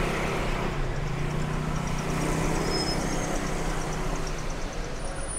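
Street traffic: cars running past with a steady rumble, and a low engine hum that comes up about a second in and fades out after about three seconds.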